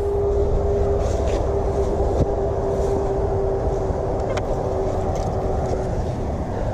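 Car driving: a steady low road and engine rumble with a steady hum, and a few light clicks.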